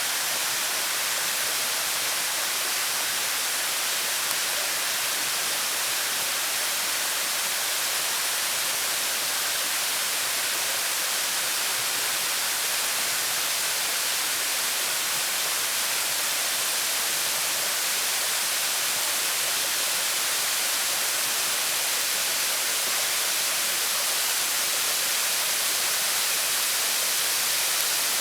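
Waterfall: falling water making a steady, even hiss with no breaks.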